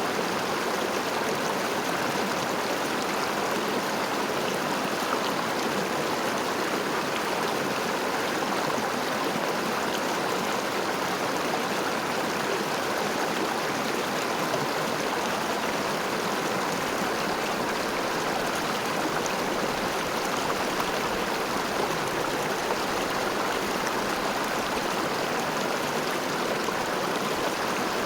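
River water flowing and rushing in a steady, even stream.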